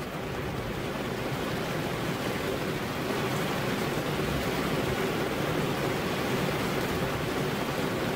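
Steady rain falling, a continuous even hiss that swells slightly over the first few seconds.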